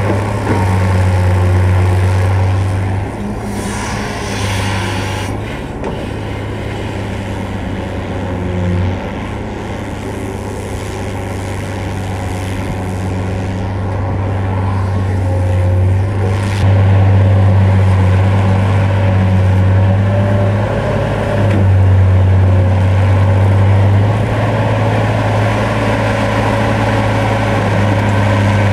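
NOBAS UB 1233 hydraulic crawler excavator working: its diesel engine drones at a steady pitch, growing louder and softer as the machine digs and swings, with a few brief metallic knocks from the bucket and boom.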